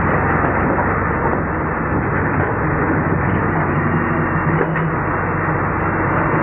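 Daewoo Solar 130 excavator's diesel engine and hydraulics running steadily under load while the bucket digs in a trench: a dense, continuous engine noise with a low steady hum.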